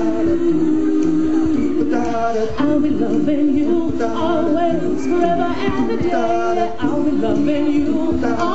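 A cappella choir singing live, holding sustained chords with a higher melodic line moving over them. The chords break off and re-enter about every four seconds.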